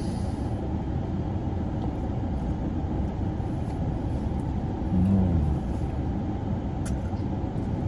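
Steady blowing noise of a car's air conditioning running inside the cabin, heavy in the low end. About five seconds in comes a brief hummed "mmm" of someone eating.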